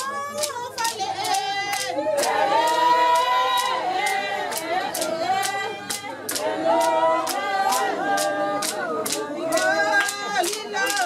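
A group of women singing together in unison, with steady hand clapping keeping time at about two claps a second.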